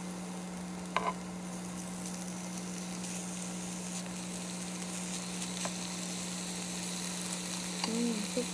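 Thin strips of beef sizzling in a nonstick frying pan on a portable induction cooktop, with a steady low hum underneath. There is a sharp click about a second in and a few lighter ticks later as metal tongs move the meat.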